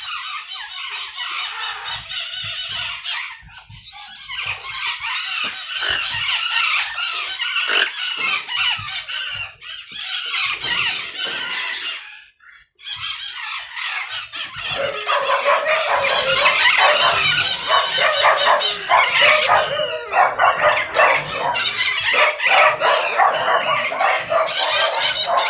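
A large group of maritacas (parakeets) screeching and chattering nonstop in a dense, overlapping din. It breaks off for a moment about halfway through and comes back louder.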